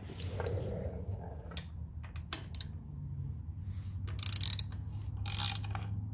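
Hand ratchet with a T45 Torx bit socket clicking in short runs as it is swung back and forth, loosening the front axle pinch bolt. The louder runs come about four and five seconds in, over a steady low hum.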